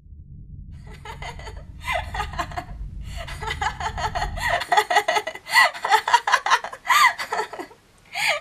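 A woman laughing in repeated bursts of giggles that grow louder. A low rumble runs under the first half and cuts off suddenly about halfway through.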